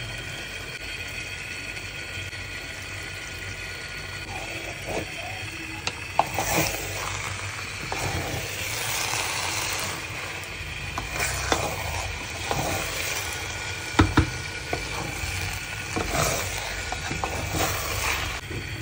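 Metal spoon stirring and scraping rice and chicken wings in a cooking pot, with irregular clinks and scrapes against the pot from about six seconds in, the sharpest a double knock about two-thirds through. Underneath is a steady hiss from the hot, steaming pot.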